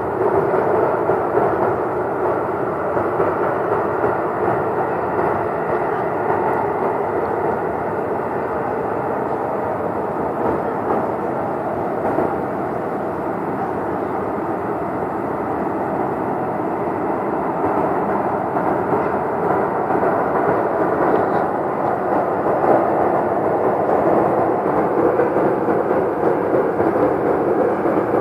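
Loud, steady rumbling from the sky of unidentified origin, holding at about the same level with a slight swell in the later part.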